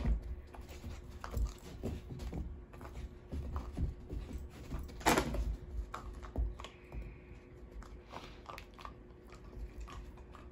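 Plastic dental-chew pouch crinkling and rustling in short irregular crackles as a dog noses and paws at it, with two louder crinkles near the start and about five seconds in.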